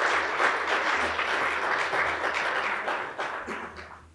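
Audience applauding, many hands clapping at once; the clapping dies away near the end.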